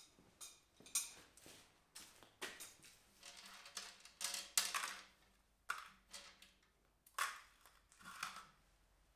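Irregular clicks, knocks and light metallic clatter of hardware being handled, with a brief faint ring a few seconds in.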